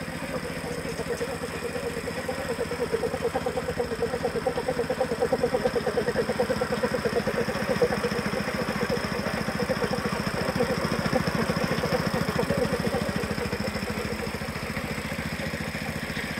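Small single-cylinder petrol engine running steadily, driving a belt-driven piston air compressor. It makes a rapid, even chugging.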